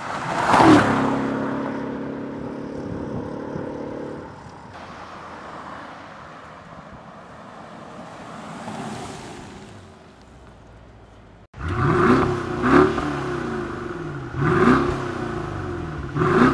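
Mercedes S500 4Matic Coupe's 4.7-litre eight-cylinder engine accelerating loudly as the car drives by, then easing off. After a sudden cut, the same engine is revved at the exhaust in about four short, sharp blips.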